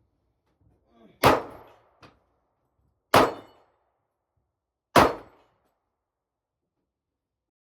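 Three gunshots about two seconds apart, each a sharp crack with a short echo dying away.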